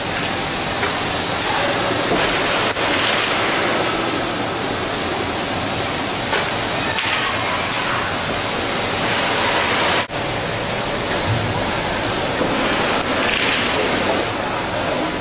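Steady, dense machine noise of an automated bakery handling line, with conveyors and an industrial robot arm running, and a few short hisses.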